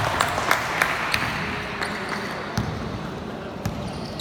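Basketball game play: a basketball bouncing on the court, a series of sharp knocks that are densest in the first second or so, over a steady background of crowd and court noise.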